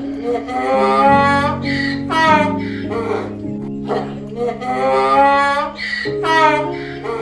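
Gentle background music with guitar and held notes, over which an animal call comes twice as a long wavering cry, each time followed by a short one.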